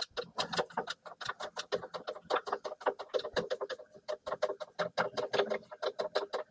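Manual milling machine's table being traversed by hand along the X-axis, giving a fast, even run of clicks, about six a second.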